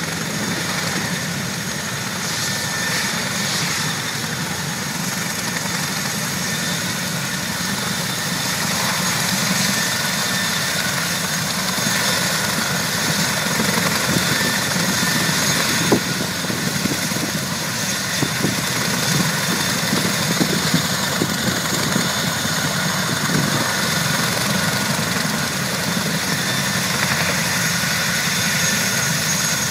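Boeing CH-47 Chinook tandem-rotor army helicopter running on the ground with its rotors turning: a steady engine whine over a continuous rotor rush and low rumble.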